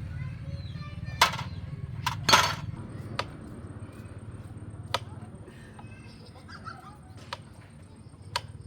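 A handful of sharp, irregular knocks and clacks, loudest about a second and two and a half seconds in, over a low steady hum that slowly fades.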